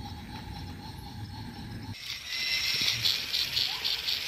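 Toy train set running on plastic track, a faint hum with soft low pulses. About halfway through, a sudden cut brings in a loud high hiss that pulses several times a second, with a few short rising chirps.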